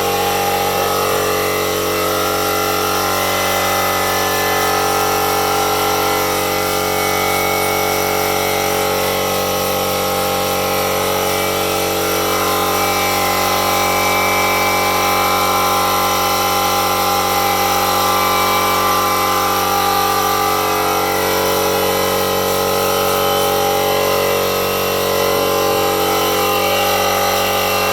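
Compressed air hissing steadily through a ball-lock gas fitting into a Fermzilla fermenter as it is pressurised for a leak test, with a slight leak at the fitting; it cuts off abruptly at the end.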